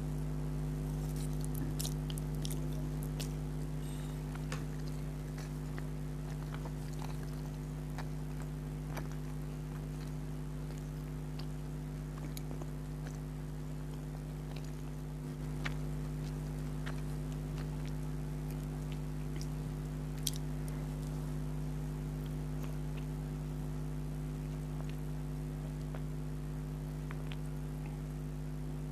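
Close-miked chewing of spicy instant noodles, with scattered small wet mouth clicks, over a steady low hum.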